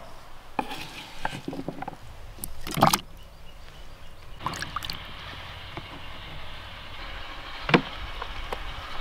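Raw potato sticks handled and dropped into a plastic tub of water: light knocks and clicks, and a splash about three seconds in. A low rumble runs under the second half, and a single sharp knock on the wooden table comes near the end.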